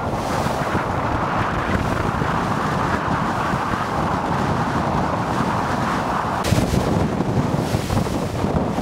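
Wind buffeting the microphone on a motor boat under way at sea, over a steady rush of water and boat noise. The sound changes abruptly about six and a half seconds in.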